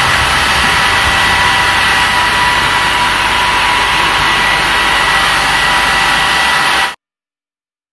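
Handheld hair dryer running on high, a steady rush of air with a high motor whine, cutting off suddenly near the end.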